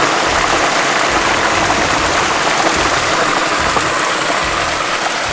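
Mountain creek rushing close by, a steady wash of running water.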